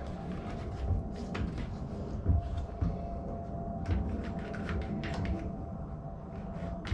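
Scattered wooden knocks and clicks as a clamp is set on a twisted door frame, over a steady low hum.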